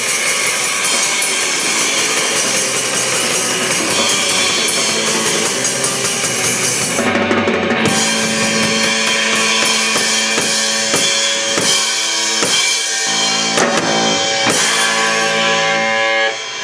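Live rock band playing electric guitars and a drum kit at full volume, with cymbals crashing. About seven seconds in the cymbals drop out and the band holds long chords under separate drum hits, with a brief drop in volume near the end.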